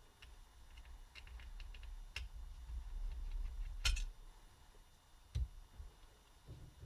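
Small clicks and ticks of a laptop cooling fan being unscrewed and taken apart by hand, with a sharper click about four seconds in and a soft knock about a second later.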